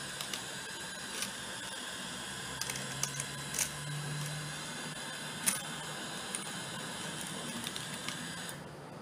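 Small DC motor running with a steady whine as it turns a cardboard disc, while plastic beads tumble inside and click at irregular moments, the loudest about five and a half seconds in. The motor cuts off near the end.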